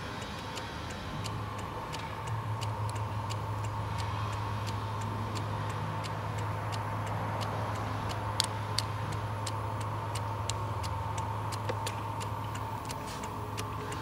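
Car engine running with a steady low hum and a fast, even ticking, about three ticks a second.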